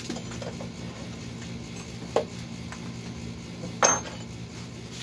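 Hard parts and tools clinking and knocking as they are handled on a cluttered workbench: a few light knocks, then a sharper ringing clink about four seconds in, over a steady low hum.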